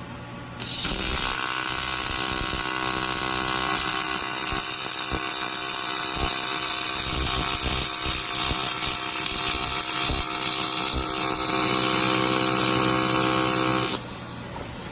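AC TIG welding arc on aluminum, an HTP Invertig 221 set to a 120 Hz AC frequency, buzzing steadily with a hiss. It strikes under a second in, swells a little shortly before it stops, and cuts off about a second before the end.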